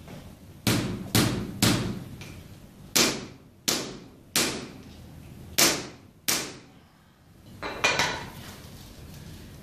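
Hand mallet striking at a patient's heel in a percussive heel-spur treatment: about nine sharp blows in groups of two or three, each with a short ringing decay, the last one weaker.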